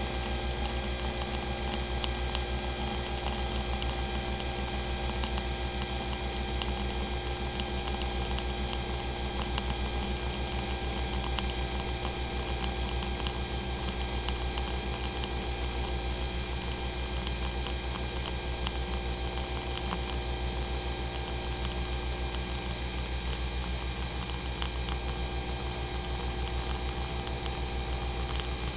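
Coffee maker running steadily: a constant low mechanical hum with steady tones over it and a light scattering of faint ticks and crackles.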